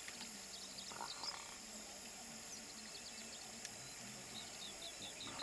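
Faint outdoor ambience: a steady high-pitched insect drone, with a run of quick chirps, about four a second, from about four seconds in.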